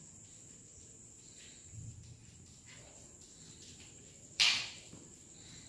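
Faint taps of chalk on a blackboard, over a steady high-pitched whine. A short, sharp hissing rush about four and a half seconds in is the loudest sound.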